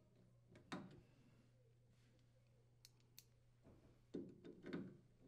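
Mostly near silence with a few faint clicks and two short light scrapes near the end, from a screwdriver driving the mounting screws into a refrigerator's plastic water filter housing.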